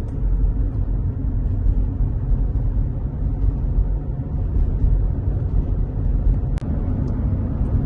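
Loud, steady low rumble, with a single brief click about six and a half seconds in.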